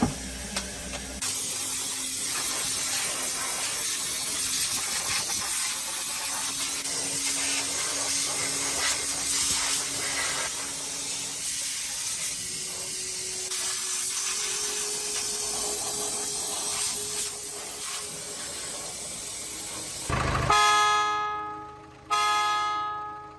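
Steady loud hiss of rushing air or gas for about twenty seconds, which stops suddenly. It is followed by two short pitched tones, each fading away over a second or so.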